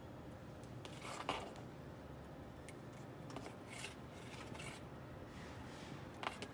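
Faint rustling of rubber-sheathed cables and small clicks as hands handle and join the dash cam's power-lead connectors, with the sharpest click about a second in and a few more spread through the rest.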